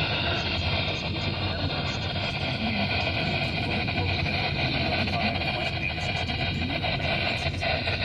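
Steady hiss of radio static over a low hum: a weak, poorly received broadcast signal.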